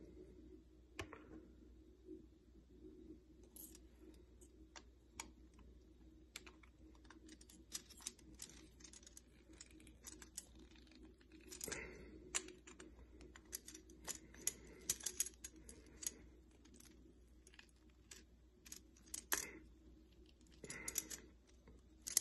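Faint, irregular light clicks and taps of small parts being handled as a ceramic thermocouple head is assembled: connectors being fitted into the ceramic block and its lid. A low steady hum runs underneath.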